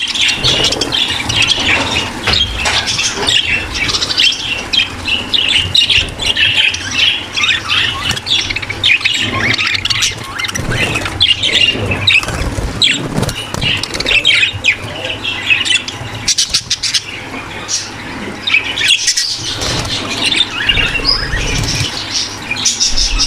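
A large flock of budgerigars in a breeding aviary, chattering and warbling continuously. Many short chirps and squawks overlap without pause, over a low steady hum.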